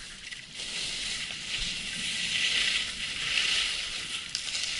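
Skis sliding and scraping over packed snow: a steady hiss that starts about half a second in and swells twice in the middle.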